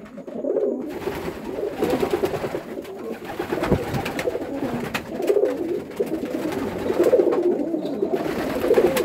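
Racing homer pigeons cooing, several birds overlapping in a continuous warbling coo.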